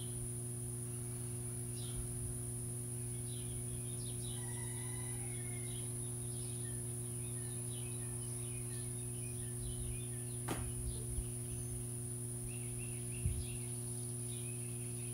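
Small birds chirping on and off over a steady low hum and a constant high-pitched whine. A single click about ten seconds in.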